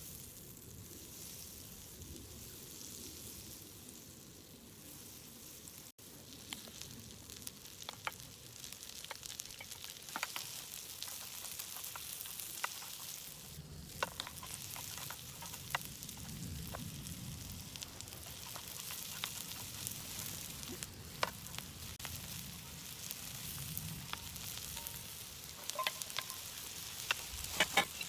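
Food sizzling as it fries in a pan, a steady hiss with scattered sharp pops and ticks that come more often after the first few seconds and cluster near the end.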